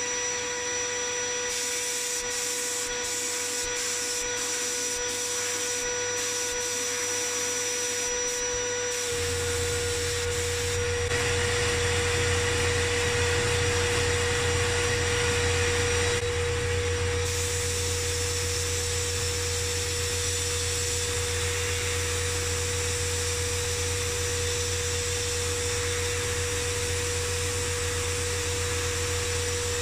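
Media blasting cabinet in use: the compressed-air blast gun hissing steadily as it strips paint from a steel panel, over a steady tone. About nine seconds in a deeper hum joins and runs on.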